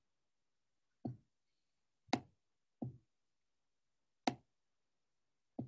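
Five short, separate knocks at uneven spacing, roughly a second apart, with silence between them.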